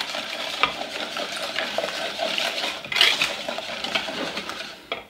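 Wire whisk beating eggs and sugar in a glass bowl: a steady scratchy swishing with light clicks of the wires against the glass, briefly louder about three seconds in.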